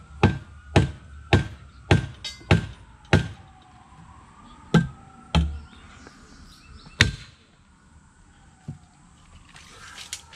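Sharp knocks of a hand-held wooden block striking the steel angle-iron transom bracket to tap it over into place: about six strikes close together, roughly two a second, then three more spaced out and a last faint one.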